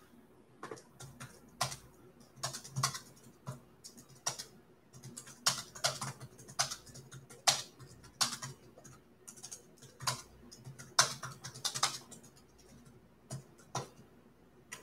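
Typing on a computer keyboard: irregular keystroke clicks in quick runs broken by short pauses.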